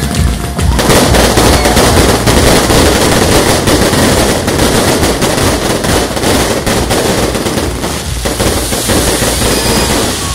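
Fireworks going off in a dense, rapid barrage of bangs and crackles, like machine-gun fire, which grows much louder about a second in.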